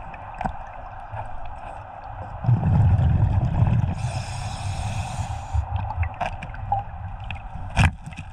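Scuba diver breathing through a regulator underwater: exhaled bubbles rumble about two and a half seconds in, followed by the hiss of an inhalation through the regulator. Small clicks and a sharp knock come near the end.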